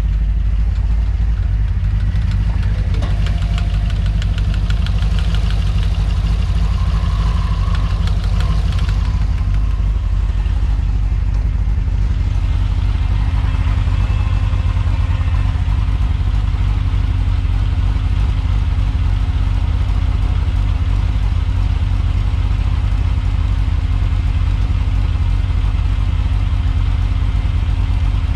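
GM LS V8 engine in a VW Beetle idling steadily through its newly installed mufflers.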